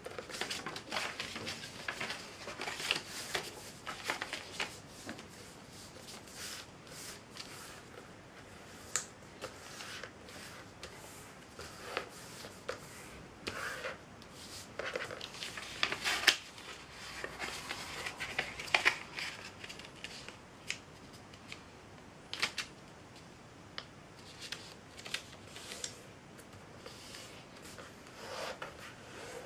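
A sheet of A4 printer paper being folded by hand on a tabletop: irregular rustling and sliding of the paper, broken by short, sharp crackles and scrapes as folds are made and creases pressed flat.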